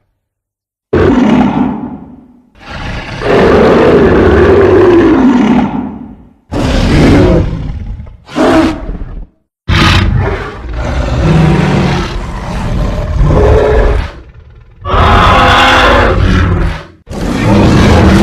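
A string of loud, rough roar and growl sound effects for a creature, about seven in a row, each lasting one to five seconds with brief silences between them.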